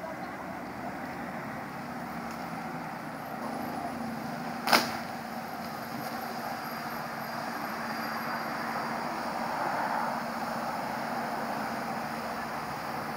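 Street traffic noise with a steady engine hum, swelling briefly as a vehicle passes about ten seconds in. A single sharp knock sounds about five seconds in.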